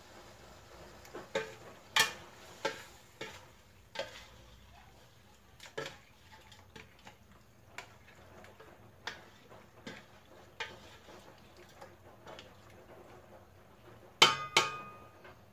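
Spatula stirring chicken pieces in a large aluminium pot, scraping and knocking irregularly against its sides and bottom. Near the end there are two loud, ringing clangs of the utensil against the pot.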